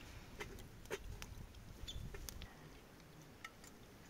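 Small wood fire crackling, with sparse sharp pops and clicks. Under it is a low rumble that dies down about two and a half seconds in.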